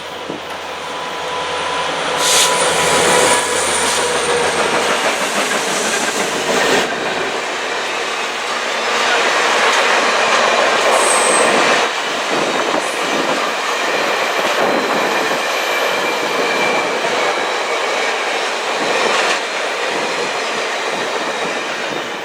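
Train rolling past: steady noise of steel wheels on rail, with brief high-pitched wheel squeals about two seconds and eleven seconds in.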